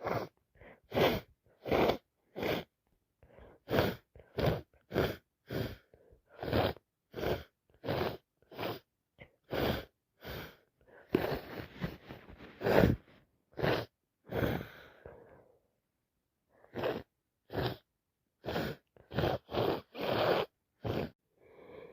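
Repeated hay-fever sneezing and hitching: a long string of short, sharp, breathy gasps and sneezes, about one or two a second, with a brief pause about two-thirds of the way through.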